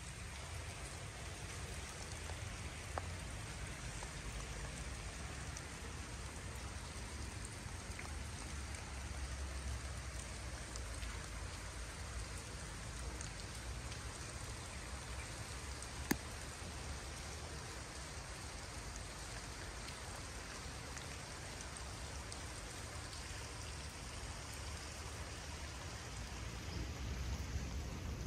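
Steady spring rain, an even hiss with a low rumble underneath and a few sharp single drop ticks, the clearest about three seconds and sixteen seconds in.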